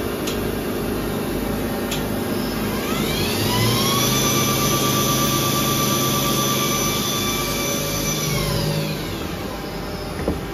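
Cincinnati CFV-1300 vertical machining center's spindle whining as it spins up about three seconds in, holding a steady pitch, then winding down near the end, over the steady hum of the running machine.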